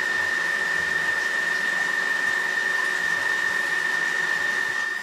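Heated food-processor (robot-cooker) blade motor spinning at speed to remix a thick sweet potato and coconut milk purée, with a steady high whine.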